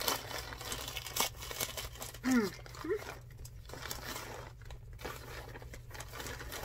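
Plastic poly mailer bag being torn open and handled, a dense crinkling and tearing crackle that thins to scattered crinkles in the second half. A couple of brief voice sounds come a little over two seconds in.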